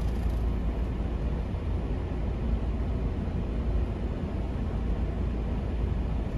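Semi truck's diesel engine running as the rig pulls forward slowly, a steady low rumble heard from inside the cab.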